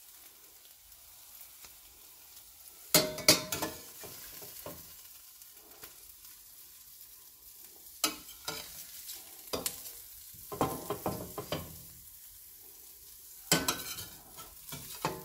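A kitchen utensil scraping and tapping in a frying pan as scrambled eggs are moved onto a plate, in several short clusters, about three seconds in, from about eight to eleven seconds and again near the end. Under it runs a faint steady sizzle from the still-hot pan.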